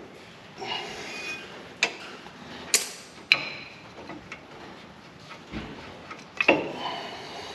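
Metal hand tools working on a Jeep Wrangler's brake caliper as the 13 mm caliper bolts are backed off. There are a few sharp metallic clinks, with the loudest near the middle and a second cluster near the end, and scraping in between.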